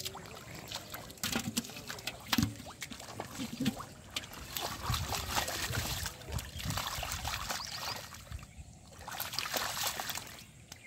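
Hands squelching and sloshing through shallow mud and water, with irregular wet slaps and splashes as the mud is dug and felt through.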